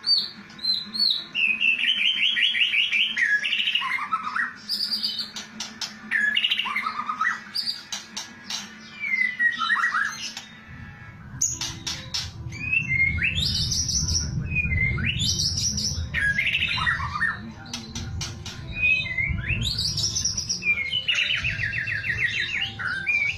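White-rumped shama (murai batu) singing: loud whistled phrases that sweep up and drop in pitch, alternating with rapid rattling trills of the 'kretekan' type. One trill comes a couple of seconds in and another near the end.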